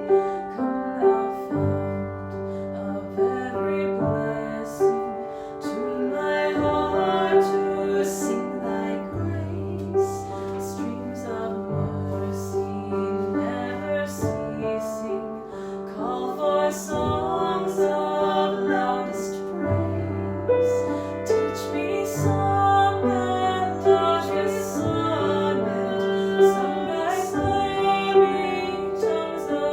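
Women's voices singing a slow, gentle sacred song over piano accompaniment, with held bass notes under the melody.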